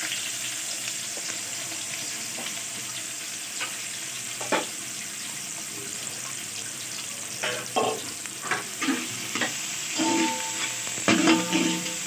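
Sliced onions sizzling steadily in hot oil in a large metal pot. A metal spoon clinks and scrapes against the pot now and then, more often in the second half.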